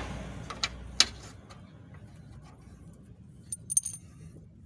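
Metal clinking of bolts, washers and a socket against an aluminium subframe brace as it is held in place and its bolts started by hand: a few sharp clinks in the first second, then lighter high metallic ticks later on. A low vehicle hum fades out within the first second and a half.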